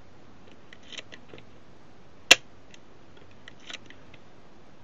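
Leaf shutter of a Mamiya Sekor 65mm f/6.3 lens, set to 1/500 s, firing once with a single sharp click a little over two seconds in. Faint small clicks come from the shutter being handled and cocked before and after it.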